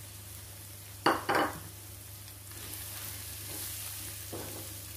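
Chopped onion, garlic and bell peppers sizzling in a non-stick frying pan while flour is sprinkled in and stirred through with a silicone spatula. Two short knocks come about a second in.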